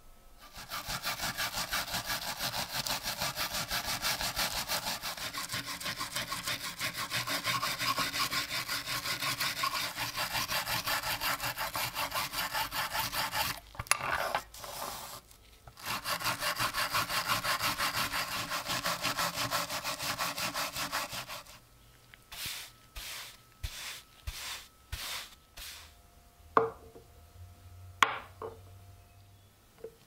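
Hand wire brush scrubbing rust and dirt off a metal Navaja knife handle piece on a wooden board, in fast back-and-forth strokes. The scrubbing stops briefly about 14 seconds in and again about 21 seconds in, after which come a handful of separate short strokes and a few sharp clicks near the end.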